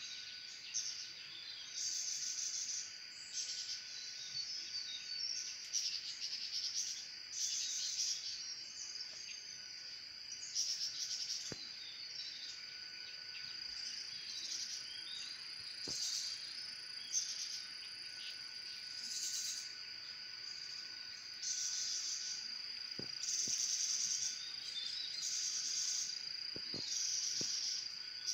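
Forest soundscape: a steady high insect drone with loud buzzing insect bursts repeating every second or two, and bird chirps among them.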